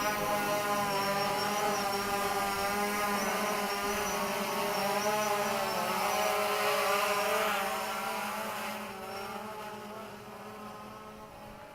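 DJI Phantom 3 Standard quadcopter's four propellers and motors whining in a steady, slightly wavering hum as it hovers, then fading over the last few seconds as it flies off.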